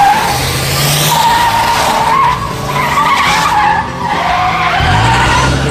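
Car sound effect: tyres squealing in long wavering screeches as the car speeds off, with the engine revving up about a second in and again near the end.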